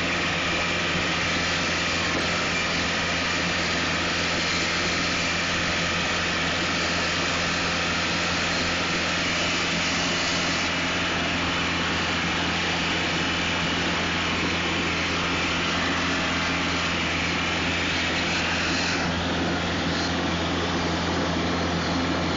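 John Deere 4500 compact tractor's diesel engine running steadily while mowing grass, heard from the operator's seat, with a steady low drone and hiss.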